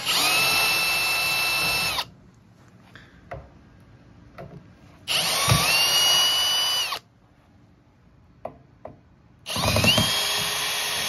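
Power drill backing the screws out of a PA speaker's metal grille: three runs of about two seconds each, the motor whine rising as it spins up and then holding steady, with light handling clicks between runs.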